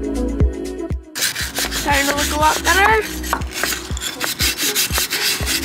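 Background music with a steady beat. About a second in, hand scrubbing on the anchor windlass starts: a rag rubbing grime and grease off the housing and base, scratchy and uneven, with a few short squeaks.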